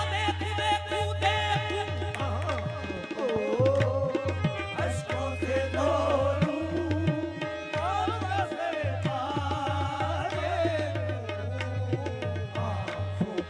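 Live qawwali music: harmoniums playing under wavering sung melody, with tabla strokes driving the rhythm.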